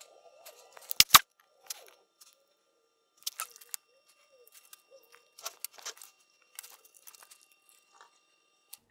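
Sparse short clicks and taps, the loudest a sharp double click about a second in, with further small clusters around three and a half and five and a half seconds in.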